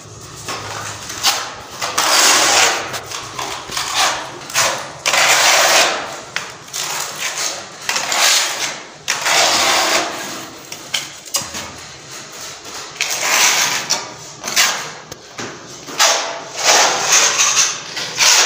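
Steel putty knife scraping and spreading wall putty across a plaster wall in repeated irregular strokes, each about half a second to a second long.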